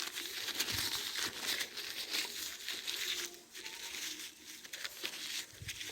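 Crinkling rustle of a napkin as a hand is wiped with it. It eases off about three seconds in to a few faint soft clicks.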